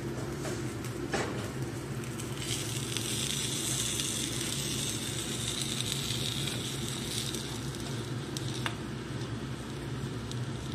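Food frying in a hot pan: a sizzling hiss that swells about two seconds in and dies down about seven seconds in, over a steady low hum.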